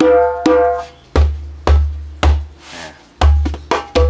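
Djembe played by hand. Two ringing tone strokes come first, then deep bass strokes about half a second apart, starting about a second in. It is played in a small room lined with acoustic foam.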